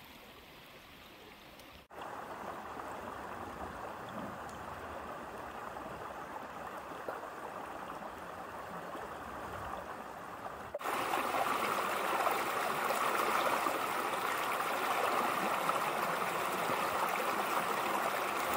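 Small forest creek running and splashing over stones, a steady rushing of water. It gets abruptly louder about eleven seconds in, closer to a small cascade.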